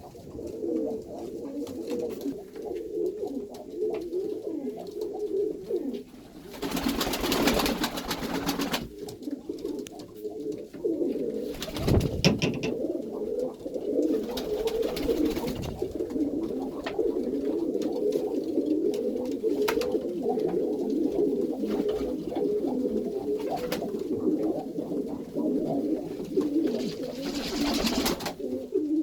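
A loft full of domestic Iranian pigeons cooing continuously, many birds overlapping. Two louder rushing bursts, each a second or two long, come about six seconds in and near the end, with a single knock about twelve seconds in.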